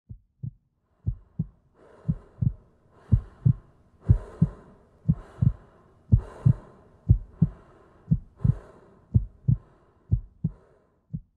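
Heartbeat sound effect: deep lub-dub double thumps about once a second, with a soft airy hiss swelling over them through the middle and fading out near the end.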